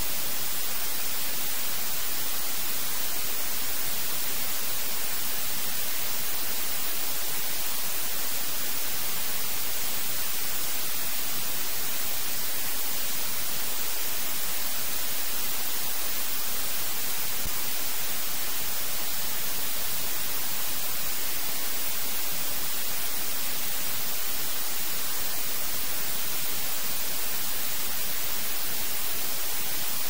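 Steady, unchanging rushing hiss of a waterfall, weighted toward the high end.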